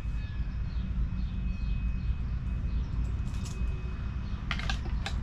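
Steady low outdoor rumble with faint scattered chirps, and a few sharp clicks close together near the end, from hands working the quad's plastic wiring connectors.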